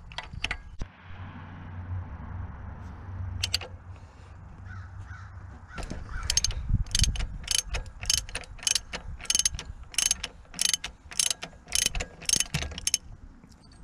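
Hand ratchet clicking as a six-point socket unscrews the exhaust back pressure sensor on a 6.7 L Cummins diesel. A few scattered clicks come first, then from about halfway a steady run of about two to three clicks a second.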